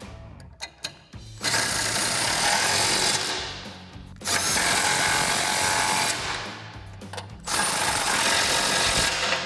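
Impact wrench hammering lock nuts down onto the bracket bolts of a truck's frame rail, in three bursts of about two seconds each with short pauses between.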